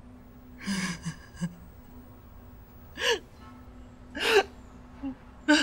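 A woman sobbing behind her hands: short gasping, whimpering breaths a second or so apart, muffled by the hands over her mouth.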